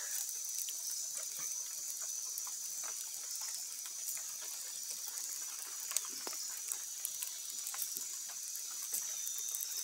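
Wood fire crackling with many small scattered pops as a paca's fur is singed over the flames, a couple of sharper snaps standing out, under a steady high hiss.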